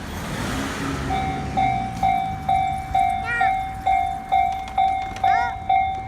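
Japanese railroad crossing warning bell starting up about a second in, clanging evenly about twice a second to warn of an approaching train. Before it, a passing vehicle is heard.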